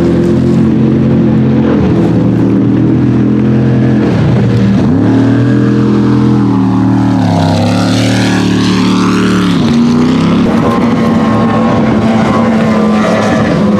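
Racing speedboat engines running hard as the boats pass at speed, the engine note dipping and climbing several times, with a second, higher engine note gliding up and down in the middle.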